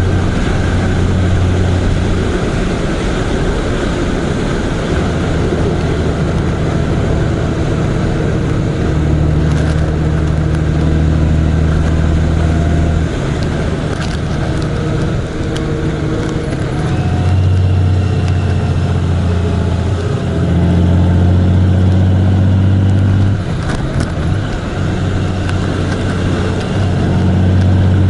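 Engine of a moving road vehicle heard on board, a loud low hum that steps up and down in pitch every few seconds as speed and gears change, over steady road and wind rush.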